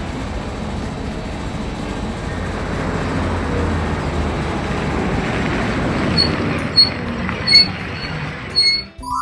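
Cartoon sound effect of a conveyor belt running: a steady mechanical rumble and rattle. Several sharp metallic clinks come in the last few seconds, and a rising chime starts right at the end.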